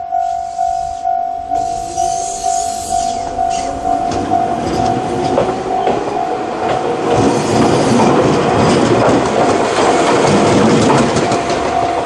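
Japanese level-crossing electronic warning bell of the Tokai type ringing steadily, about two strikes a second. From about two seconds in, a train passes over the crossing with wheels clattering over the rail joints, loud enough to drown the bell until near the end.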